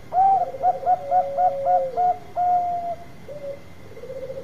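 Bangkok-type zebra dove (perkutut) cooing: a quick run of short staccato coos with a rolling trill beneath, ending on a longer held note, then a softer trill starting near the end.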